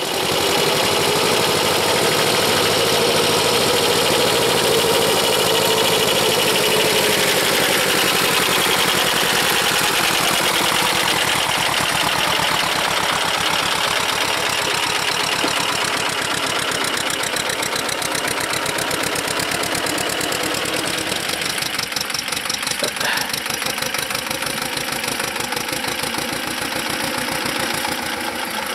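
Two-cylinder air-cooled diesel of a Vladimirets T-25 tractor running steadily as it pulls a loaded trailer, with a fast even throb of firing pulses. Louder in the first half as it passes close by.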